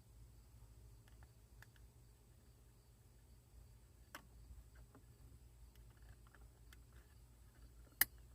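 Faint handling of a car dome light and its wiring plugs: scattered small plastic clicks, with one sharp click near the end.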